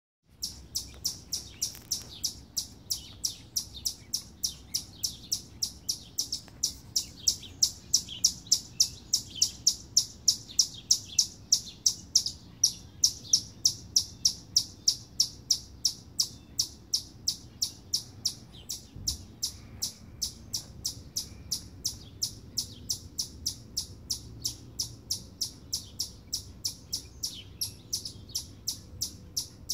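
Eastern chipmunk giving its repeated alarm chip call: a sharp, high chip about three times a second, kept up steadily.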